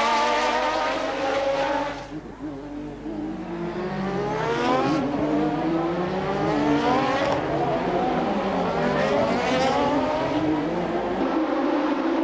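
Several 1988 Formula One cars accelerating hard, their engine notes overlapping. Each note climbs in pitch and then drops abruptly at an upshift; the loudest car fades about two seconds in as others build up.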